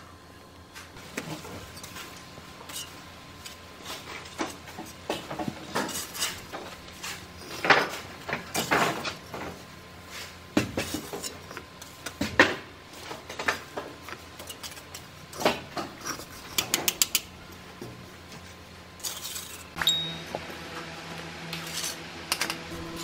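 Bricklaying with a steel trowel: irregular sharp clinks and scrapes of the trowel against the mortar bucket and bricks as mortar is scooped and bricks are set. A low steady hum comes in near the end.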